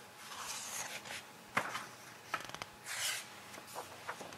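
Brochure pages being handled and turned: soft paper rustles with a few sharp ticks.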